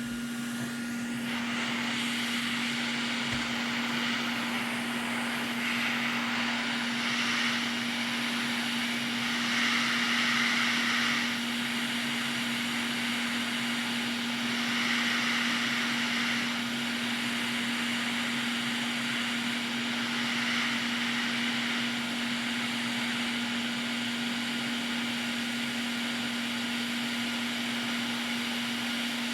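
Hot air rework gun blowing to desolder a PS5 HDMI port: a steady rush of air over a constant low hum, getting louder in several surges lasting a second or two each.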